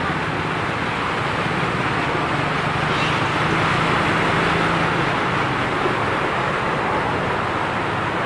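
Steady street traffic noise with a low engine hum that is strongest in the first five seconds and then fades.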